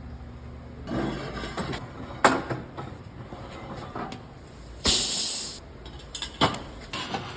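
Metalworking shop sounds: a few sharp metal knocks and clanks, and about five seconds in a loud hiss that lasts under a second.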